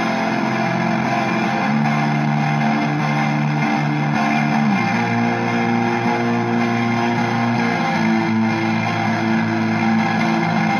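Electric guitar (a Squier Affinity Jazzmaster) played through a reverb pedal placed before a distortion pedal, giving a shoegaze wall of noise. Sustained washing chords change about two seconds and five seconds in.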